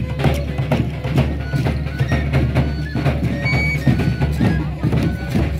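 Traditional folk procession music played live: a violin playing short melody notes over a steady drum beat.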